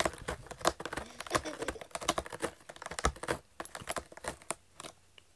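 A cat's claws scratching and picking at a corrugated cardboard scratcher: a dense run of quick dry clicks and scrapes that thins out about three and a half seconds in and stops after a few last ticks.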